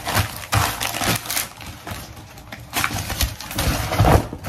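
Irregular crinkling and crackling of packaging being handled, with uneven short crackles and rustles.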